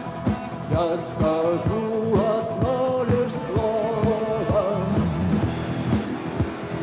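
Rock band playing: a sustained melodic line with gliding notes over a steady drum beat of about two strokes a second.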